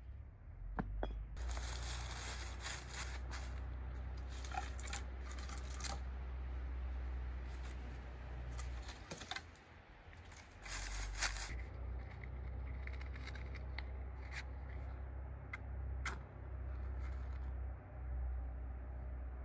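Food-preparation handling sounds: bursts of rustling or tearing and a few sharp clicks, over a steady low rumble.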